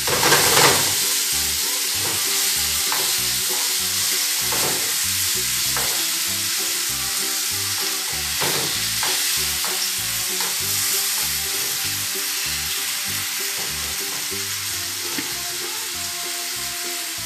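Porcini mushrooms with garlic and parsley sizzling as they sauté in a frying pan on a gas hob. A spatula stirs them, with a scrape against the pan every few seconds.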